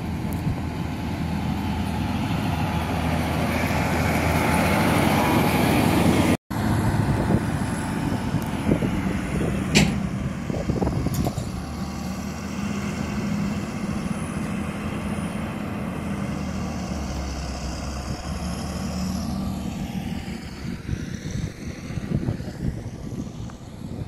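Motor grader's diesel engine running steadily, getting louder over the first six seconds as the machine comes closer. The sound breaks off for a moment about six seconds in, then the engine carries on, with a single sharp knock about ten seconds in.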